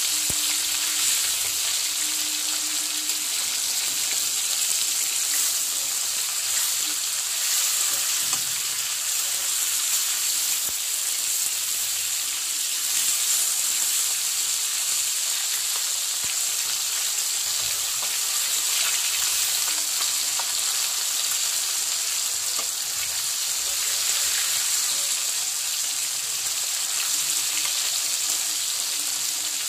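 Pieces of bata fish shallow-frying in hot mustard oil in a kadhai: a steady, high sizzle, with a few light taps and scrapes of a metal spatula as the pieces are turned.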